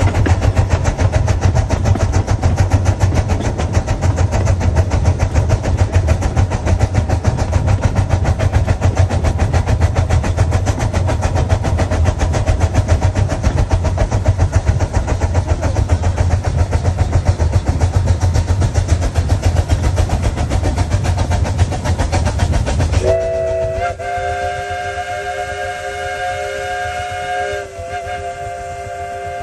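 Miniature steam train running, heard from the car behind the locomotive as a steady rumble with rapid clatter. Near the end the rumble drops away and the locomotive's steam whistle blows a chord of several notes in one long blast, breaks off for a moment, then sounds again.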